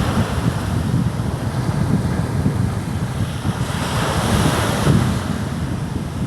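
Sea waves surging and washing in, one swelling louder about halfway through, with wind buffeting the microphone as a steady low rumble.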